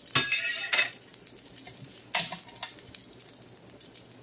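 Metal spatula scraping and clinking on a Presto electric griddle, a longer stroke at the start and a shorter one about two seconds in, over the faint sizzle of potato pancakes frying.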